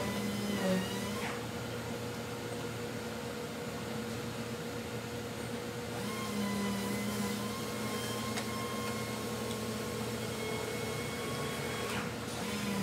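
A steady whirring hum with a few sharp clicks.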